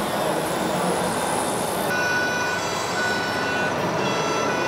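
Steady hall noise. From about halfway in comes a repeating high electronic tone from an RC model vehicle's sound module, in beeps lasting well under a second with short gaps.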